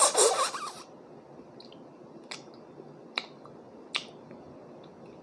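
A short, loud slurp through pursed lips, as if sucking up spaghetti noodles. Then three sharp clicks about a second apart, with a few fainter ones between.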